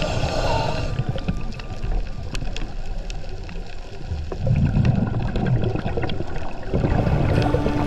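Underwater sound of a scuba diver's exhaled bubbles: a low bubbling rumble that swells twice, about halfway through and again near the end, with a few faint clicks.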